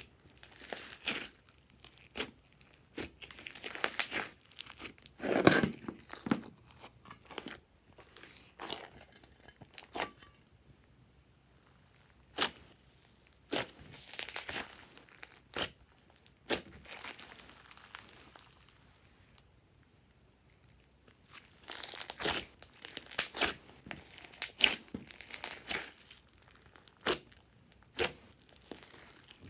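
Slime being squished and stretched by hand, giving irregular sticky pops and crackles in clusters, with a quieter lull partway through.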